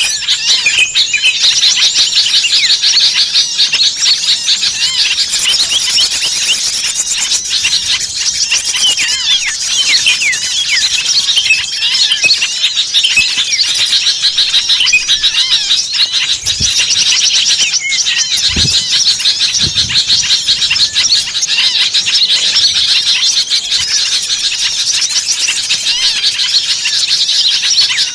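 Dense chorus of many small birds calling at once in an agitated, noisy way: rapid overlapping high chirps, squeaks and trills with no break. It is a bird-luring recording of excited small birds used to call others in. A few faint low thumps come about two-thirds of the way through.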